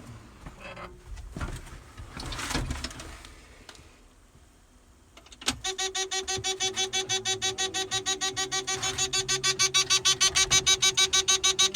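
Faint knocks and rustling, then a click about five seconds in and a combine's warning buzzer beeping rapidly and evenly, about five beeps a second, as the ignition is switched on before the engine is started.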